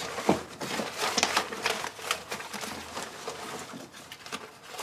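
Paper entry slips rustling and crinkling as a hand stirs through them and draws one out, in a quick irregular run of rustles and clicks.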